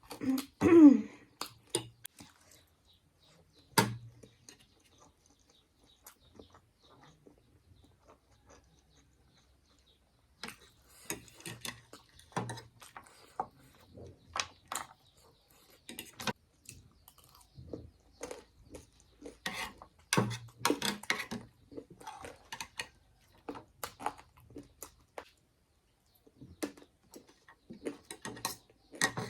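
Close-miked eating sounds: crunchy chewing and clicks of cutlery against a plate, in irregular bursts. A short murmur comes at the start, and a quiet stretch of several seconds follows before the crunching becomes steady again.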